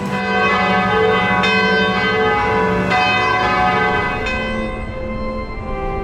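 Church bells ringing, a new stroke about every second and a half, each ringing on over the one before.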